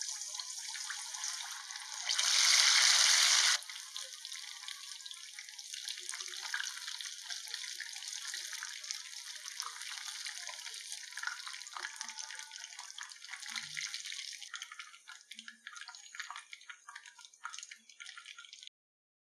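Marinated chicken drumsticks deep-frying in hot oil: a steady sizzle full of crackles. It swells much louder for about a second and a half around two seconds in, then thins to sparser pops and cuts off just before the end.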